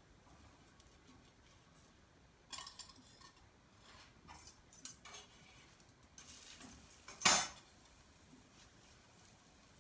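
A metal spoon and steel utensils clinking against a bowl and an iron tawa while parathas are cooked, with the metal bangles on the cook's wrist jingling. The clinks come in small scattered clusters, the loudest a sharp clatter about seven seconds in.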